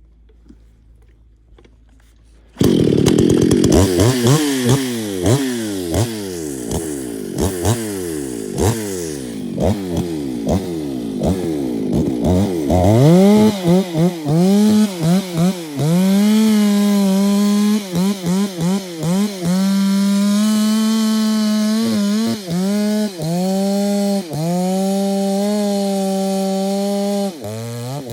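Husqvarna 254 two-stroke chainsaw, coming in loud and suddenly about two and a half seconds in. It runs at high revs with the pitch repeatedly sweeping down, then settles into a steadier high note broken by many brief dips in speed and level.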